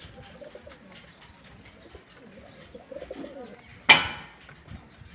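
Madrasi fancy pigeons cooing. About four seconds in there is a single sharp bang, the loudest sound here.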